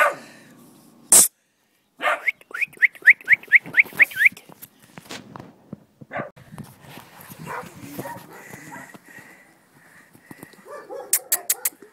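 A small dog yapping: a quick run of about ten short, high yips, each rising in pitch, over about two seconds, after a single sharp knock about a second in.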